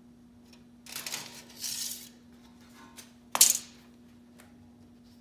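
Metal parts and hand tools being handled on a steel frame rail: a scraping rustle about a second in, then one sharp metallic clack a little past three seconds.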